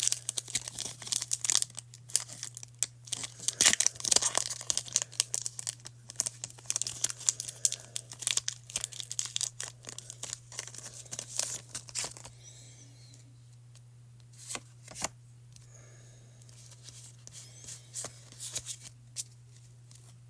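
Foil wrapper of a Pokémon TCG booster pack being torn open and crinkled, a dense crackling for about the first twelve seconds, then only a few soft clicks and rustles as the cards are handled. A steady low hum runs underneath.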